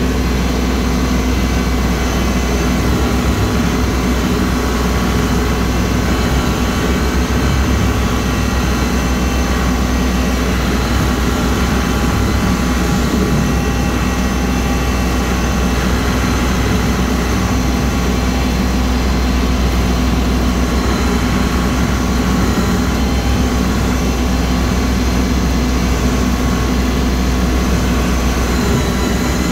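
Kubota L3302 tractor's three-cylinder diesel engine running steadily under load, driving a rotary cutter through tall grass and weeds.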